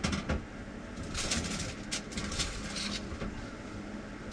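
Rustling of baking paper and a few sharp clicks and knocks as a tray of potatoes is handled and put into an oven, over a low steady hum.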